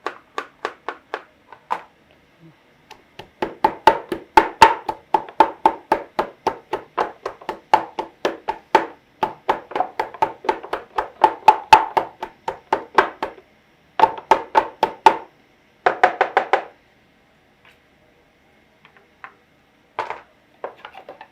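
Rapid, rhythmic knocking of a kitchen utensil, several strikes a second with a slight ringing. It builds into a long run, then comes back in two short bursts after brief pauses, and ends in a few scattered knocks.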